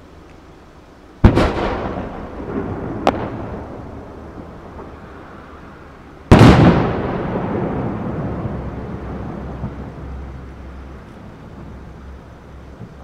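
Aerial fireworks going off: a loud bang about a second in, a sharp crack about two seconds later, and the loudest bang about six seconds in, each trailing off in a long echo that fades over several seconds.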